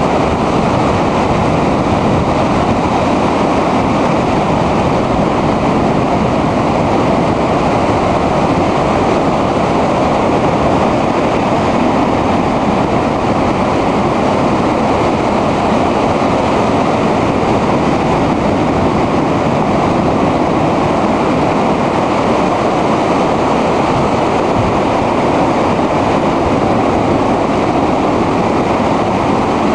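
Heavy storm surf breaking over rocks and a pier: a loud, steady wash of breaking waves and foam, with no single wave standing out.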